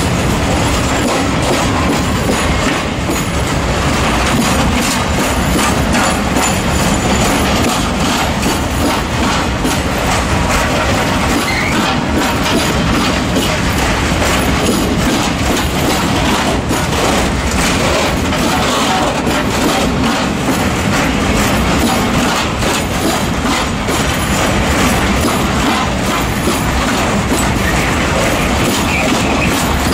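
Freight train of PKP Cargo open-top coal wagons rolling past at slow speed: a steady rumble of wheels with constant clatter and knocks over rail joints and points, and once or twice a brief wheel squeal. The loudness comes from freight trains slowing and taking the station's side track, whose rails are in poor condition.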